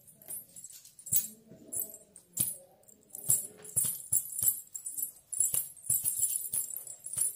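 Silver anklets and bridal toe rings hung with small ghungroo bells jingle in quick shaking bursts about twice a second as the feet step in flip-flops. Soft footfalls thud under some of the bursts, and the jingling comes thicker in the second half.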